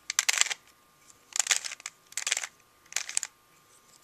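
3x3 Rubik's Cube layers being twisted by hand, the plastic pieces clicking and clattering in four short bursts about three-quarters of a second apart.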